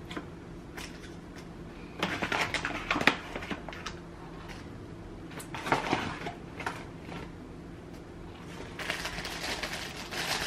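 Crinkling of resealable kraft-paper and plastic pouches and a tablespoon scooping powdered herbs, in three short bouts of rustles and clicks: about two seconds in, around six seconds, and again near the end.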